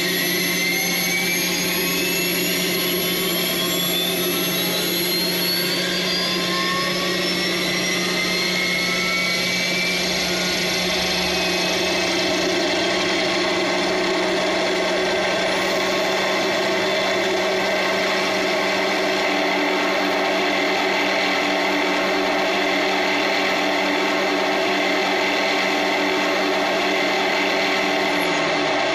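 Radio-controlled scale helicopter on Align T-Rex 600 electric mechanics spooling up: motor and gear whine rising in pitch over roughly the first ten seconds, then holding steady with the rotors at speed. The pitch dips slightly at the very end.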